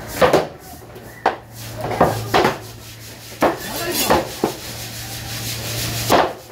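Heavy curved knife chopping through a whole skipjack tuna onto a wooden block: about eight hard, irregularly spaced chops.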